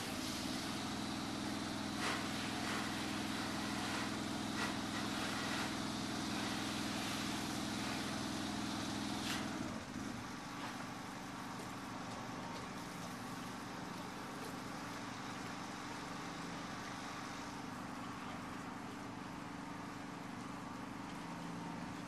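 Gas-engine-driven spray rig running steadily, with the hiss of cleaning spray from the wand. About ten seconds in, the engine note shifts down slightly and the spray hiss lessens.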